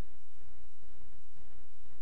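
A steady low hum with faint hiss, unchanging throughout.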